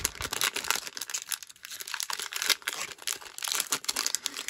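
A 2021 Topps Update Series foil card-pack wrapper being torn open and crinkled by hand, making a continuous run of crackles and rustles.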